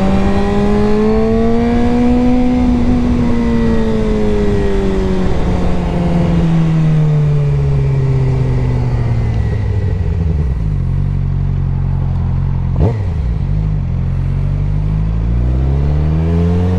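2023 Suzuki GSX-R600's inline-four engine on the move: its note rises briefly, then the revs fall slowly for several seconds, hold low for a few seconds, and climb again near the end. A steady wind rush runs underneath, and there is a single short click about two-thirds of the way through.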